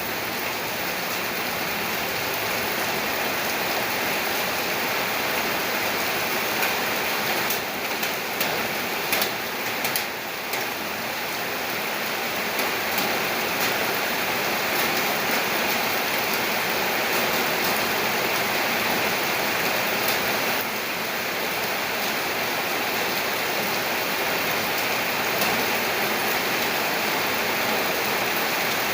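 Steady heavy rain, with scattered sharp drip and splash clicks standing out now and then, most of them a third of the way in.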